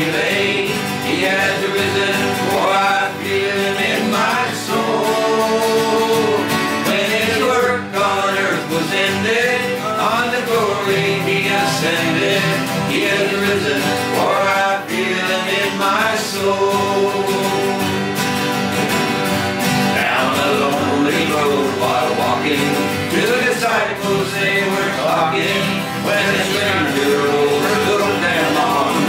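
Four acoustic guitars strummed together, with men's voices singing in harmony in a country gospel song.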